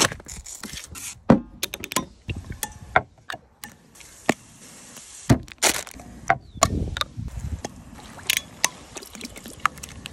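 Kitchen prep sounds: a run of short sharp clicks and knocks as ingredients go into a stainless steel bowl, liquid being poured, and a spatula stirring thick sauce in the bowl.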